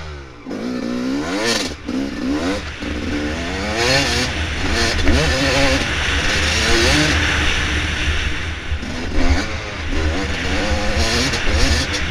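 Dirt bike engine revving up and down over and over, its pitch rising and falling every second or two, with a steady rushing noise and occasional knocks.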